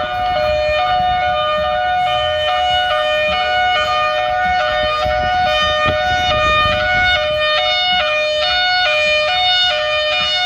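Simulated Thunderbolt 1003 air raid siren from a siren app, sounding its hi-lo signal: a loud tone that switches back and forth between two pitches roughly every half second.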